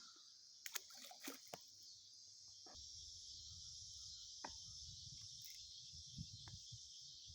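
Steady, faint high-pitched chorus of insects, with a few sharp clicks about a second in and a low rumble from about three seconds in.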